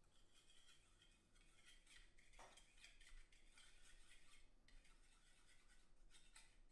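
Faint, quick scraping and ticking of a thin metal stirring rod against a small plastic cup as a dark enamel wash is stirred.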